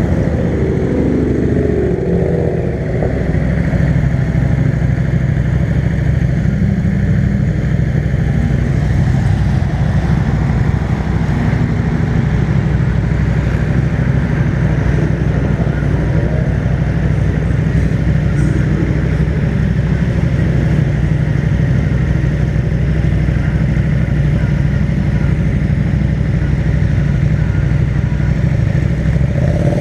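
Sport motorcycles idling close by, a steady low engine drone. Just after the start and again near the end a passing car's engine revs up and down.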